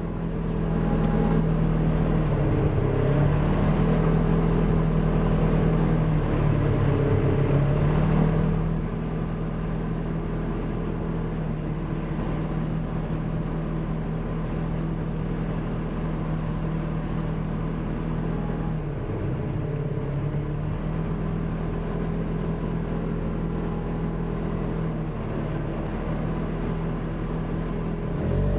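Polaris RZR 1000 side-by-side engine running under throttle: its pitch swings up and down and it is louder for the first eight seconds or so, then it settles to a steadier, lower drone.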